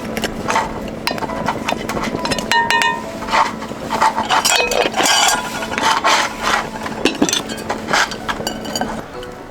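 Repeated clinks and clatter of hard objects, over a steady low hum that stops near the end.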